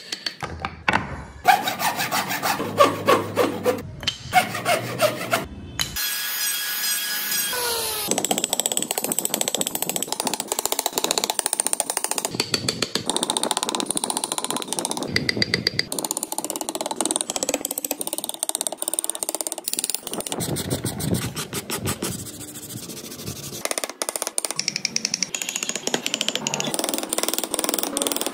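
Hand chisels and gouges paring and shaving wood: a steady run of short, rapid scraping cuts. The character of the cutting changes abruptly a few times as different carving clips follow one another.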